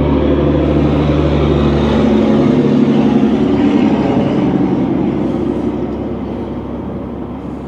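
A motor vehicle passing by: a low engine hum turns into a rush of engine and road noise that peaks about three seconds in and then fades away.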